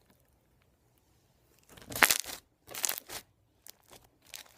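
Borax-activated milky slime squeezed and pressed by hand, giving a really good crunch: a few crackly bursts, the loudest about two seconds in, then smaller crackles.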